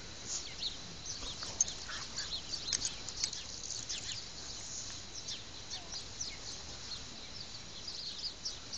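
Small birds chirping and twittering: many short, high chirps, mostly falling in pitch, several a second.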